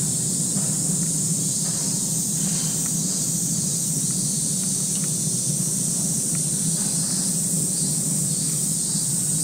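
Steady high hiss with a low hum beneath it, unchanging throughout, with a few faint ticks; no call from the chimpanzees stands out.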